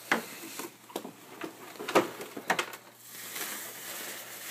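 Bubble wrap and cardboard packing being handled: about six sharp crackles and knocks in the first two and a half seconds, then steady rustling and crinkling.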